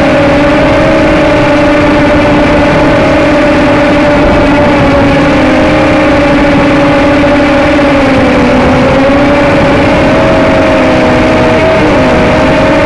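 HT803C micro drone's motors and propellers whining steadily, loud and close as picked up by the drone's own onboard camcorder, the pitch wavering slightly with throttle and dipping briefly near the end.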